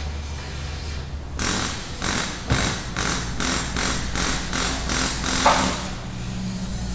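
Auto repair shop ambience: a steady low hum like an idling engine or shop machinery, and from about a second and a half in, a run of about a dozen evenly spaced tool strokes, about three a second, that stops about a second before the end.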